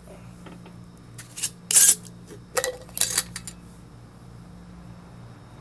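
Glass jar of flake pipe tobacco being handled and opened: a short run of glassy clinks and knocks, the loudest about two seconds in, over a steady low hum.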